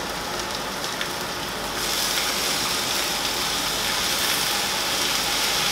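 Rabbit meat and vegetables sizzling in a hot frying pan on a gas hob, the sizzle growing louder about two seconds in as Worcestershire sauce is splashed into the pan.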